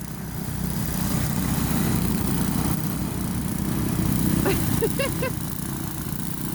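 Gas snowblower engine running steadily while clearing snow.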